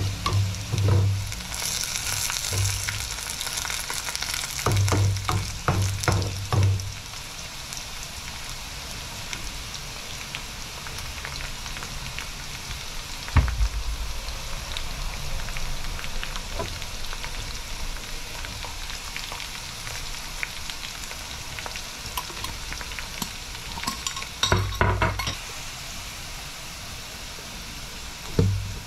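Sliced onions and dried red chillies sizzling in hot oil in a kadai, with a steady frying hiss. A steel ladle stirs them, scraping and knocking against the pan in several short bursts.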